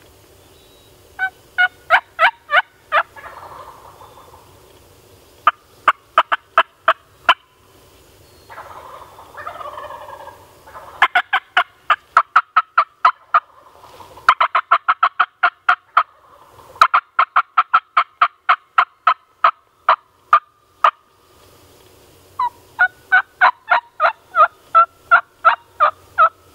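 Wild turkey yelping: runs of sharp, evenly spaced yelps, four series in all. The longest series, in the middle, goes at about six to seven notes a second and ends in one drawn-out note.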